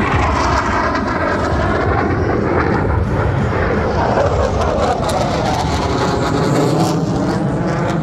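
A Black Eagles KAI T-50B jet with a single GE F404 turbofan is flying past overhead: a loud, steady jet roar whose pitch sweeps up and down as it passes.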